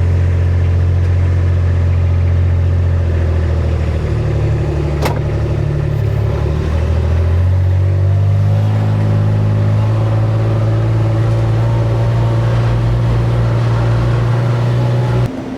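A heavy machine's engine running close by, its pitch stepping up and down a few times as the revs change, with a single sharp click about five seconds in.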